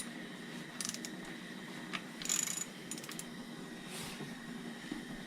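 Hand ratchet clicking in short, irregular bursts as a coil pack is refitted and bolted down on the engine.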